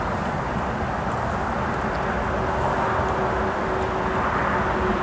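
EP1M electric locomotive hauling a passenger train, approaching from a distance: a steady rumble, with a faint steady hum coming in about halfway through.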